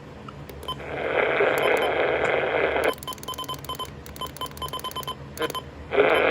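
Radio receiver audio during an emergency alert broadcast: a stretch of static-like hiss, then a run of rapid short electronic beeps at about six a second with a brief break, then hiss again near the end.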